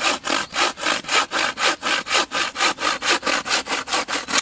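Fast hand sawing through a wooden stick with a homemade bow saw: a roughly 50 cm bow-saw blade tensioned in a bent fresh beech branch, going back and forth at about four to five strokes a second. The sawing stops suddenly near the end.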